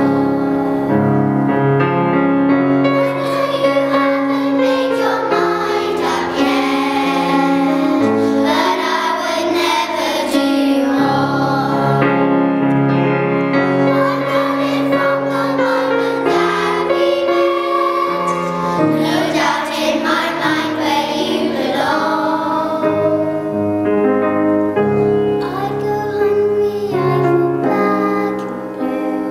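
A group of children singing a song together, accompanied by piano.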